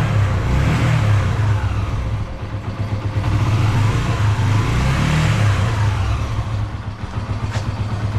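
Yamaha YBR125's air-cooled single-cylinder four-stroke engine idling steadily as it warms up after a cold start.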